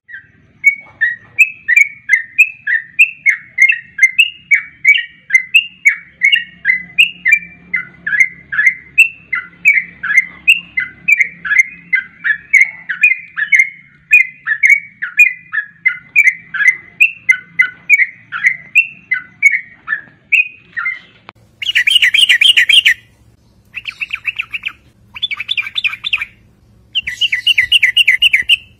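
Yellow-vented bulbul (trucukan) calling: a long run of short, sharp chirps, about two a second. After about twenty seconds this gives way to several bursts of fast, buzzy chattering trills.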